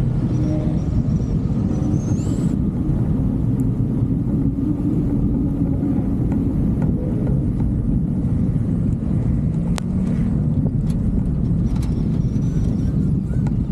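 A motor vehicle driving, its engine and rumble steady and loud, with a few faint squeaks and ticks.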